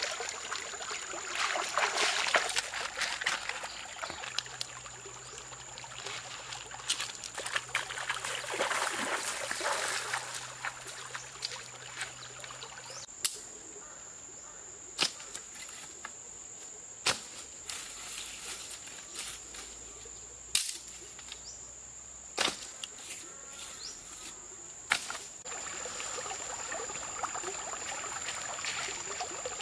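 Water splashing and trickling as lettuce is rinsed in a woven basket in a shallow stream, over a steady high-pitched insect drone. Midway the water fades and a handful of sharp snaps come a couple of seconds apart, then the stream's flow comes back near the end.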